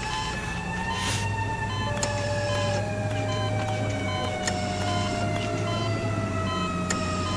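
Electronic soundscape: a siren-like tone with overtones slowly drifting and falling over a steady low hum, with short high beeps recurring every half second or so and a few scattered clicks.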